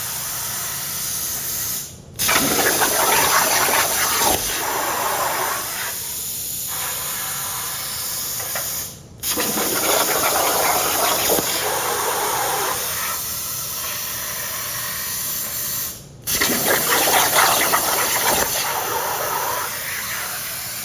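CNC plasma torch cutting 1/8-inch steel plate: a steady hiss of the arc and air. It cuts out briefly three times, about seven seconds apart, and each stop is followed by a louder, rougher stretch.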